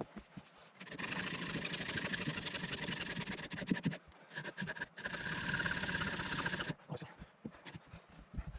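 Hacksaw cutting through a wet log, rasping steadily in two long stretches with a short pause between.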